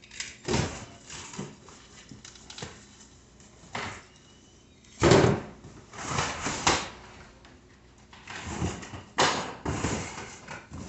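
Bike parts and cardboard packaging being handled in an open shipping box: rustling and scraping with a string of knocks and thumps. The loudest thump comes about five seconds in, with another cluster near the end.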